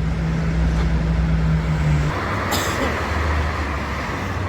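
Fast traffic passing: a heavy vehicle's low engine drone cuts off about two seconds in, leaving mainly tyre and road noise, with a short sharp hiss soon after.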